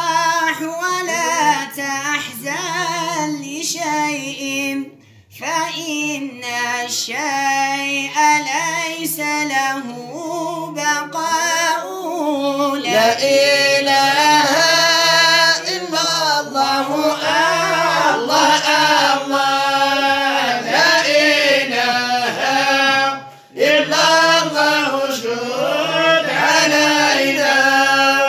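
Arabic devotional singing, madih nabawi in praise of the Prophet: a voice sings long, ornamented lines with a sliding melody. It breaks briefly for breath about five seconds in and again shortly before the end.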